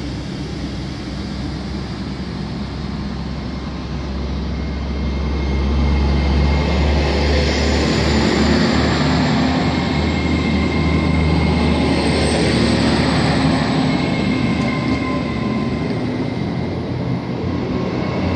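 Nine-car GWR Class 800 bi-mode train pulling away under diesel power, its underfloor engines running and the wheels rolling on the rails, getting louder about five seconds in as it picks up speed. A thin high whine rises slowly in pitch.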